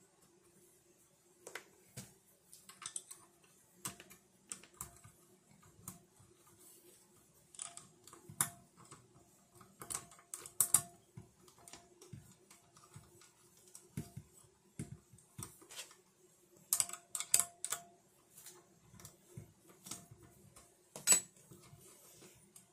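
Scattered clicks and taps of small metal and plastic parts being handled and fitted: spacers, bolts and the mic adapter piece of a VIVO monitor arm. Quick runs of clicks come about ten seconds in and again near seventeen seconds, with a sharper click near the end.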